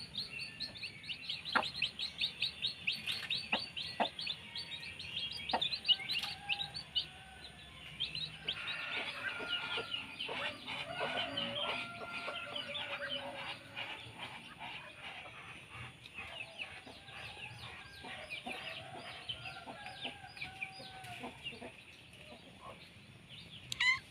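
Backyard chickens clucking, over constant rapid, high-pitched bird chirping. The clucking is strongest from about a third of the way in, and a few sharp clicks come in the first several seconds.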